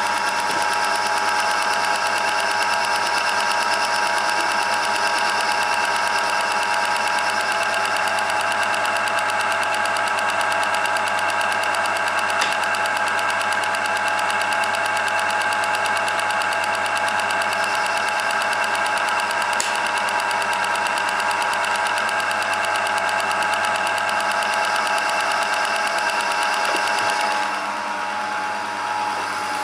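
Homemade metal lathe running steadily under power, its motor and gear train giving a constant mechanical whir with several steady tones. The higher part of the sound drops away about two seconds before the end.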